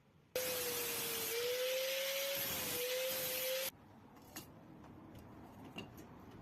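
Handheld power tool running against rusty machete steel for about three seconds: a steady motor whine, wavering slightly, over loud hissing abrasion. It cuts off suddenly, followed by a few light clicks.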